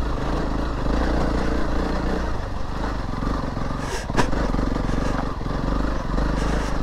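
Honda CRF300 Rally's single-cylinder four-stroke engine chugging at low revs as the bike climbs a rough, rocky track, with a couple of sharp knocks about four seconds in.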